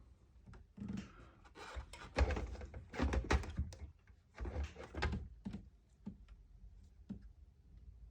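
Knocks, clatter and scraping from handling and fitting PlayStation 3 console parts back together during reassembly, in several bursts, loudest about two to three and a half seconds in.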